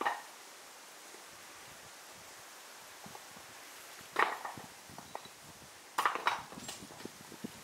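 Hammer striking stone to dress it for wall cladding: sharp, clinking knocks, one at the start, another about four seconds in, and a quick run of three or four near the end.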